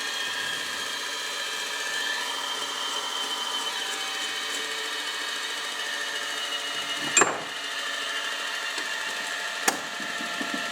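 Bench grinder spinning, its motor giving a steady whine of several fixed tones. Two short sharp clicks cut in, about seven seconds in and again near ten seconds.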